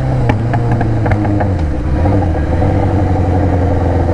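Yamaha XJ6 inline-four motorcycle with an aftermarket Atalla exhaust running under way. Its revs fall over about the first two seconds, then hold at a steady lower note, with a few sharp clicks in the first second and a half.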